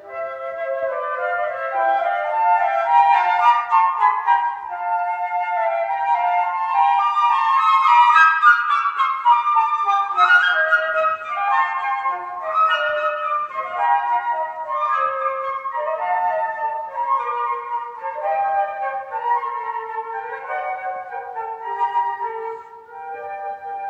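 Two flutes playing a duet, two melodic lines moving together without a break.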